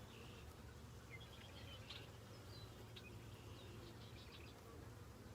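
Faint, steady hum of honeybees from an open hive, with a few faint, short bird chirps.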